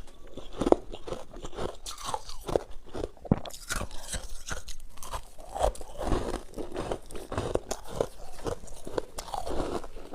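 Close-up biting and chewing of freezer frost: a steady run of irregular crunches and crackles as mouthfuls of the packed frost are bitten and chewed, the frost squeaky as it is crushed.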